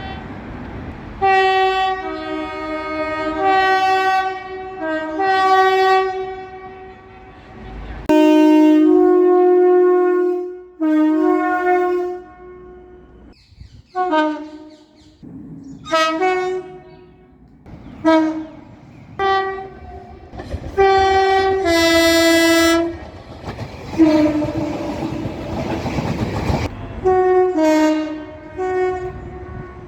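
Train horns sounding one after another from several trains. Most of the blasts are short and alternate between a higher and a lower note, with a few longer held blasts. Near the end, the rumble and rail clatter of a passing train can be heard under them.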